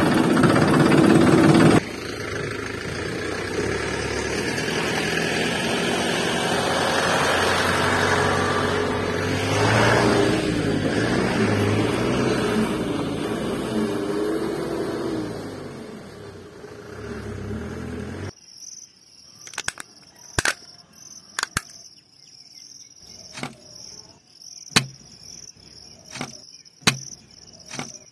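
Music at first, then a toy vehicle's small electric motor running for about sixteen seconds, its pitch wavering. It cuts off suddenly, leaving steady insect chirping and a series of sharp clicks and taps.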